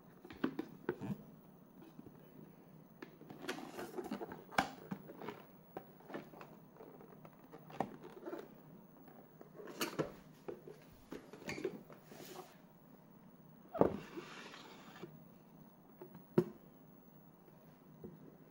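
A rigid cardboard box being handled on a tabletop and its lid taken off: scattered light taps, knocks and scrapes of cardboard, with a longer sliding rustle about three-quarters of the way through.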